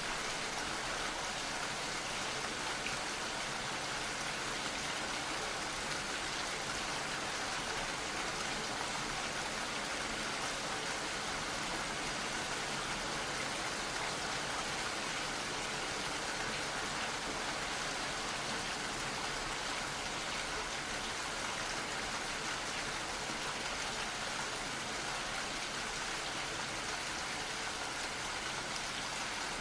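Gentle rain falling steadily, an even patter of drops.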